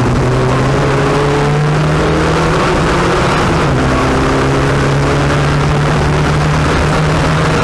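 Turbocharged 2.0-litre fuel-injected engine of a Lada VFTS rally car running hard at speed, heard loud from inside the stripped, caged cabin. Its pitch steps and shifts a few times, around two and a half and four seconds in.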